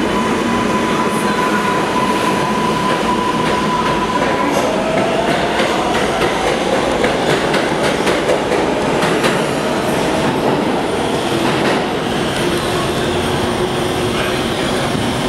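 An R142A subway train pulls out of the station and speeds up past the platform, with a steady rumble of cars and wheels on rail. For the first few seconds an electric whine from its propulsion holds one pitch; then gliding tones take over and rapid clicks of the wheels over rail joints come through the middle. The rumble carries on as the last car draws away.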